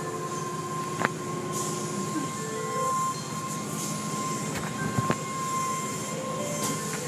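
Automatic car wash heard from inside the car: a steady rumble of water spray and cloth brushes working over the car, with a sustained high whine and a few sharp knocks as the cloth strips hit the body.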